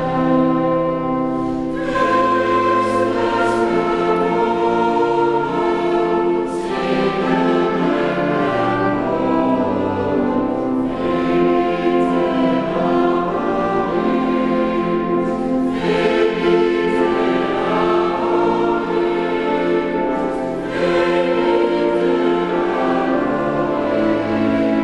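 A choir singing in held chords, the phrases breaking off and starting again about every four to five seconds.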